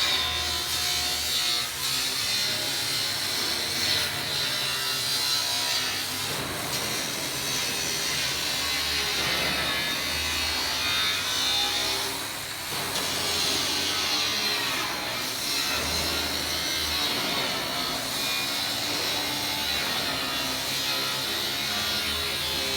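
Power tool cutting into the steel of a narrowboat's bow, running continuously with a steady high whine.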